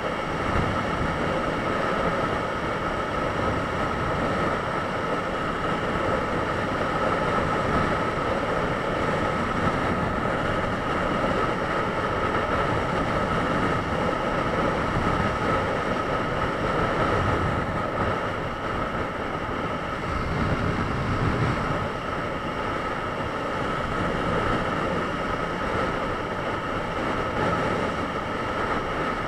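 Honda CBR954RR Fireblade inline-four sport bike running at a steady motorway cruise, its engine mixed with wind rushing over the microphone. A constant high tone runs through the steady noise.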